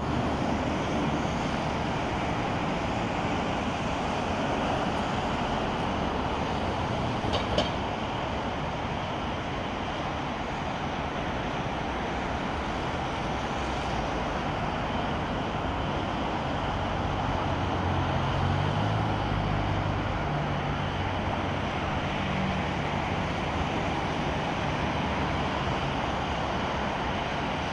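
Steady road traffic noise from a busy multi-lane road, with a low drone coming up for several seconds about two-thirds of the way through and a single short click about 7.5 s in.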